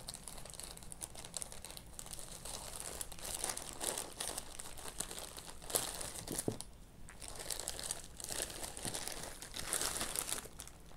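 Plastic courier mailer bag crinkling and rustling in irregular bursts as it is cut open with scissors and pulled apart by hand.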